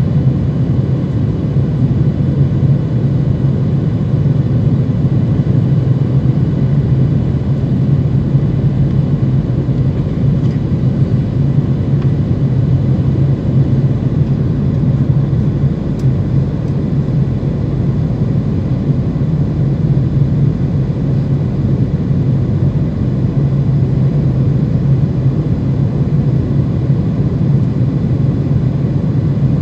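Steady cabin noise of a Boeing 737-900 heard from a seat over the wing on approach: its CFM56-7B turbofan engines and the airflow over the fuselage make a constant deep rumble, with faint steady tones above it.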